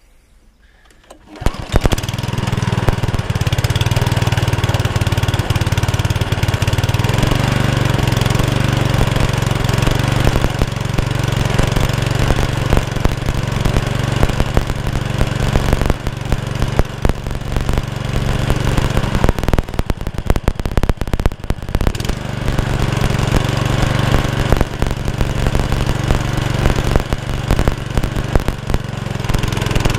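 Honda Lawnflite Pro 553 HWS lawnmower's single-cylinder four-stroke engine pull-started, catching about a second and a half in, then running at a steady speed. It holds its revs without hunting, its carburettor jet having just been cleaned out.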